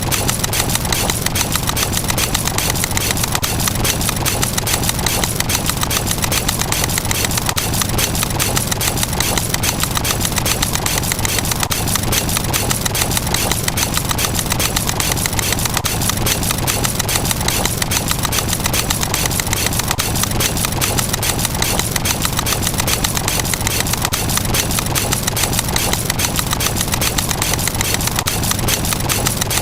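A rapid, unbroken run of short, identical click sound effects, many a second, each one marking a step of a number counter ticking upward.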